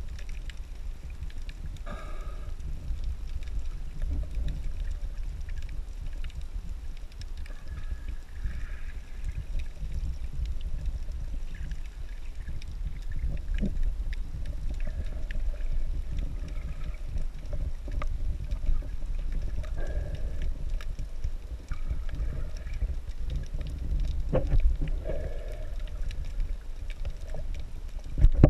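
Muffled low rumble of water moving around a GoPro camera in its waterproof housing underwater, with faint scattered clicks.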